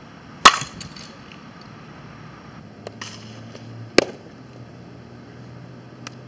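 A softball bat hitting a front-tossed softball with a sharp crack about half a second in, the loudest sound. About four seconds in, a softball pops into a catcher's mitt.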